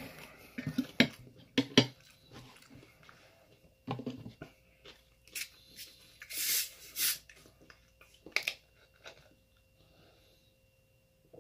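Close-up mouth sounds of chewing food, with small clicks from a fork and plate. About six and a half seconds in, a plastic drink bottle is opened with two short hisses.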